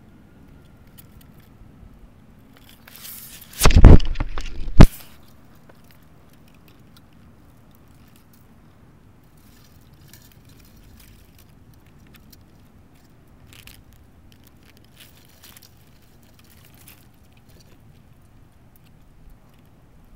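Handling noise right at the camera's microphone: a loud scraping, crackling rustle a few seconds in, lasting about two seconds and ending in a sharp knock. The rest is faint, with a few soft clicks.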